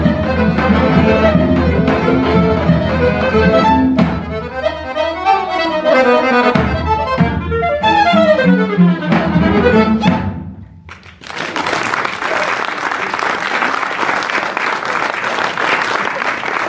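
Acoustic folk ensemble of violin, clarinet, cello and accordion playing a tune that winds down and ends about ten seconds in. Audience applause follows, steady, to the end.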